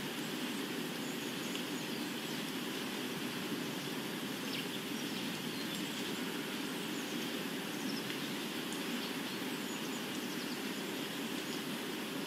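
Steady ambient noise bed: an even hiss over a low rumble, with a few faint high chirps.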